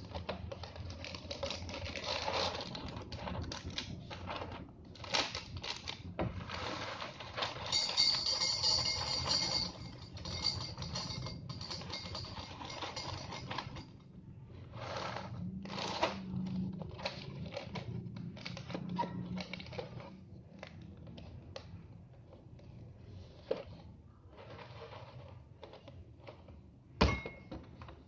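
Crinkling of a cereal box's plastic inner bag being handled and torn open, with dry cereal poured into a ceramic bowl, dense for the first half and then in short separate rustles. One sharp knock near the end.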